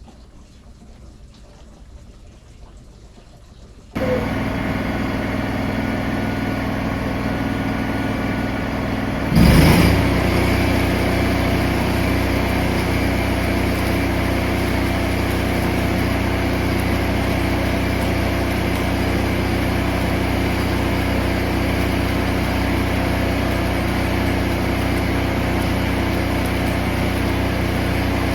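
The engine of an engine-driven welding machine running steadily. It comes in abruptly about four seconds in, with a short loud burst just before ten seconds, after which it runs slightly louder.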